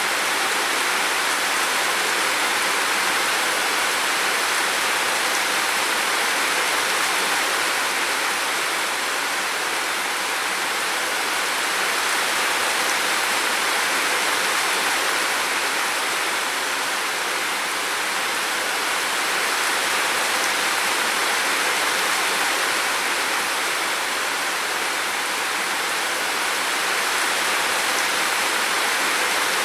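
Steady, unbroken rush of water noise, a hiss without distinct drops or splashes, swelling only slightly now and then.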